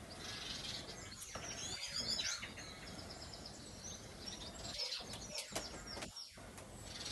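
Small birds chirping in short snatches over steady background noise.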